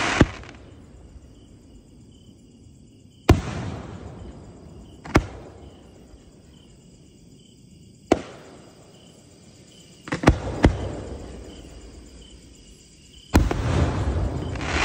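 5-inch aerial display shells firing from mortar tubes. There is a sharp bang every two to three seconds, two of them in quick succession about ten seconds in, and each is followed by a fading hiss and rumble. The launches send shells up on glowing tails, and the shells break overhead.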